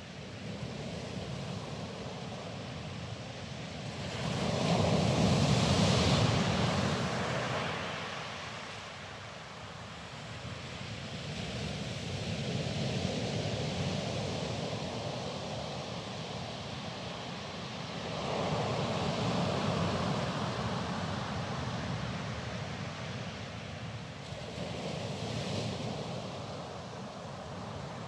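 Sea waves breaking and washing over a pebble beach in a steady rush, swelling with each wave. The biggest wave comes about five seconds in, and smaller ones follow at roughly six-second intervals.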